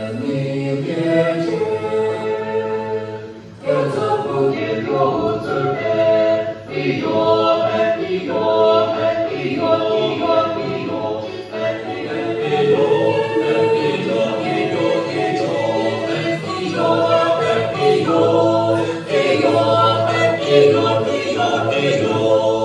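A choir singing in several parts, holding long notes, with short breaks between phrases about four and seven seconds in.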